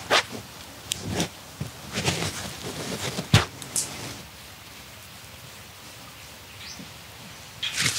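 Wet squelching and splashing drips as hands squeeze and wring water out of a handful of shredded banana stem, several squeezes in the first half, then quieter.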